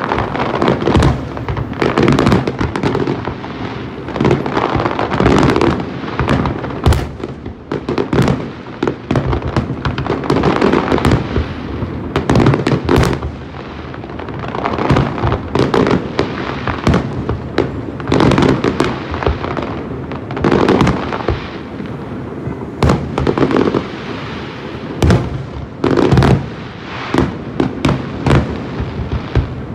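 Fireworks going off in a continuous display: many sharp bangs at irregular intervals, some in quick clusters, over a rolling rumble and crackle.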